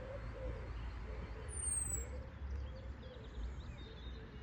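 Birds singing outdoors: low wavering cooing notes and, about one and a half seconds in, a thin high whistle that falls in pitch, over a steady low rumble.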